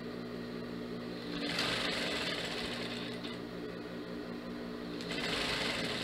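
Jontex JT-8900 industrial lockstitch sewing machine stitching a seam: a steady motor hum, with louder runs of stitching about a second and a half in and again near the end.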